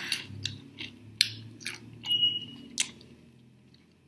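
Close-miked chewing and biting on a sauced chicken drumstick: irregular wet mouth clicks and smacks, with a short faint high tone about two seconds in.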